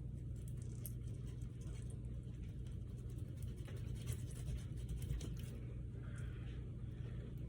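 Knife scraping and cutting at a perch's tough skin: a run of small scratchy clicks over a steady low hum.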